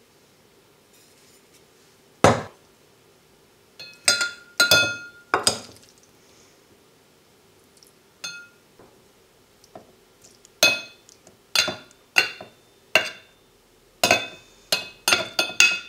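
A metal spoon clinking against the rim of a stainless steel food jar and a ceramic bowl as pasta is spooned into the jar: a series of sharp, ringing clinks, coming faster near the end. A heavier knock about two seconds in, as a food jar is set down on the counter.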